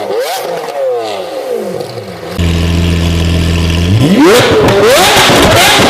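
Lamborghini Aventador V12 being revved. First come repeated falling sweeps as the revs drop back again and again. A bit over two seconds in it changes abruptly to a steady low drone. Near the end the revs climb sharply into louder revving whose pitch rises and falls.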